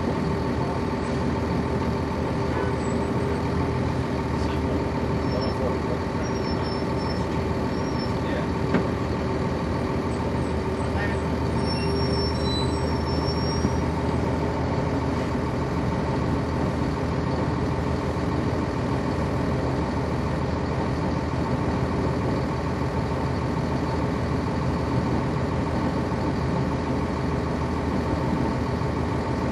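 Inside a 1999 NovaBus RTS transit bus, its Cummins ISC inline-six diesel running steadily with a constant hum.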